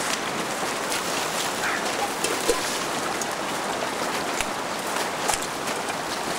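Shallow woodland creek running with a steady rushing hiss, a few light clicks scattered through it.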